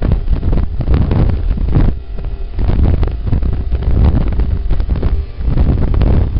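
Wind buffeting the microphone in uneven gusts, a heavy rumble that eases briefly about five seconds in.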